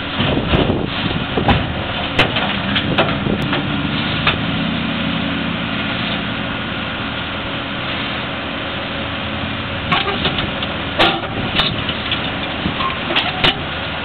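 Backhoe loader's diesel engine running steadily, with sharp clanks and knocks as its bucket works among broken concrete pavement slabs, several in the first few seconds and another cluster about ten seconds in.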